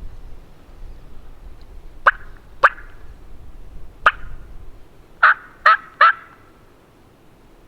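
Turkey yelps: six short, sharp notes, two about two seconds in, a single one near four seconds, then three in quick succession, over a low rumble of wind.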